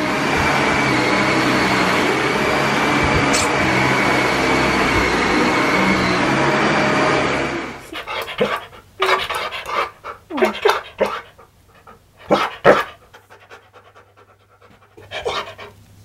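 A Dyson cordless stick vacuum running with a steady whine, cutting off abruptly a little before halfway. A husky (huskamute) then makes a string of short yowling 'talking' vocalisations with sliding pitch.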